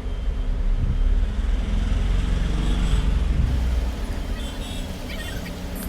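Steady low rumble of road traffic, with a few faint light ticks in the second half.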